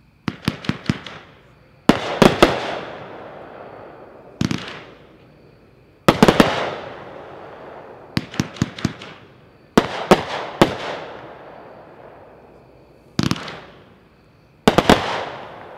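Epic 'Royal to None' 20-shot fireworks cake firing in quick volleys of several sharp bangs every second or two, each volley trailing off in a fading tail.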